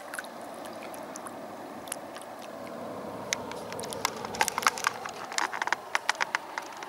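Shallow river water splashing and lapping around bare feet over a steady rush of water. It is joined about halfway through by a run of sharp crackling clicks.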